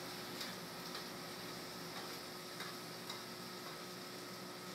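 Spaghetti and vegetables in soy sauce and stock sizzling in a hot pan as they are tossed with metal tongs. A steady, faint hiss runs under a few light clicks of the tongs against the pan.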